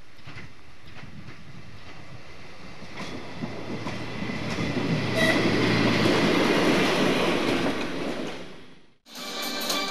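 Diesel railcar of the Czech Railways Regionova type passing close by: its engine and wheels grow louder, peak about five to seven seconds in with wheels clattering over the rail joints, then fade away. Music starts just before the end.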